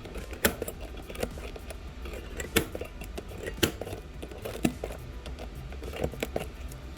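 Scattered sharp clicks and clinks of small hand tools working on the iPhone's cracked back glass, about one a second.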